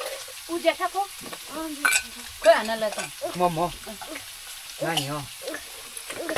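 Food frying in a pan and being stirred, with a faint sizzle, while people's voices talk over it.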